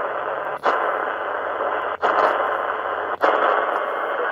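ATS25X1 shortwave receiver's speaker giving a steady rush of band noise on the 80-metre band in LSB mode. Three brief dropouts with clicks break it as the tuning knob steps the frequency.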